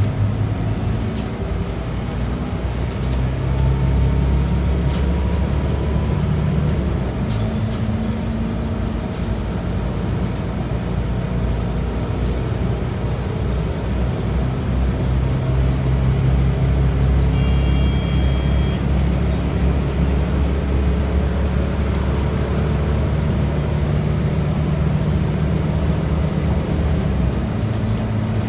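Scania DC9 nine-litre six-cylinder diesel of a Scania K94UB bus heard from inside the cabin as the bus pulls away and gathers speed, the engine note dropping and rising again several times as the ZF five-speed automatic changes up. Light interior rattles near the start, and a brief high-pitched tone about two-thirds of the way through.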